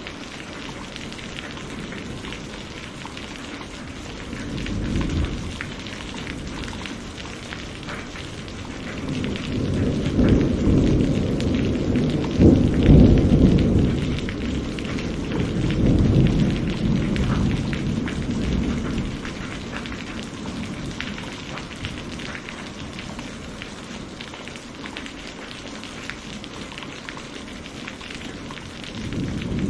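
Steady heavy rain with thunder: a short rumble about five seconds in, then a long rolling rumble that builds from about nine seconds, is loudest around thirteen seconds and fades out by about nineteen.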